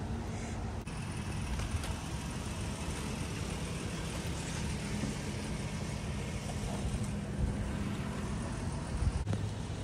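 Steady low machine hum, like a running engine, with a faint click about a second in and another near the end.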